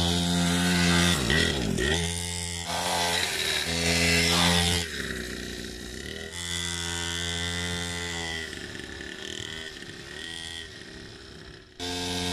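Small 49cc two-stroke pocket bike engine running, its pitch dropping and climbing again several times as the throttle is let off and opened.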